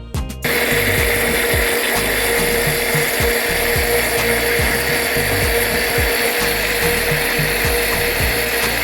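Countertop blender switched on about half a second in and running steadily at high speed, blending chopped carrots with oil, sugar and eggs into cake batter.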